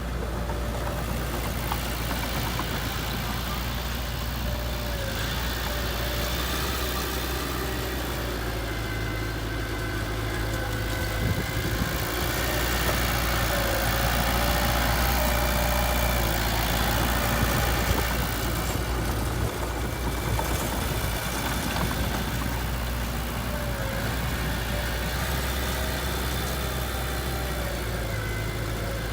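Diesel engine of a heavy machine running steadily near idle, growing somewhat louder for several seconds around the middle.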